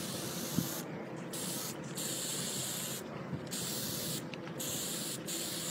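A hiss that starts and stops repeatedly, about six times, over a steady rough rubbing noise.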